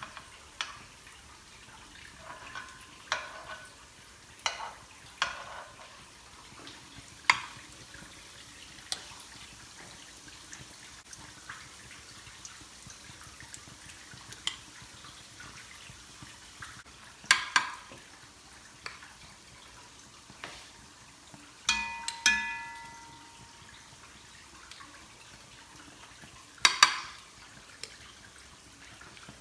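Potato kuku patties frying in oil in a pan: a steady, soft sizzle. Now and then a utensil clicks against the pan, once with a short metallic ring about two-thirds of the way through.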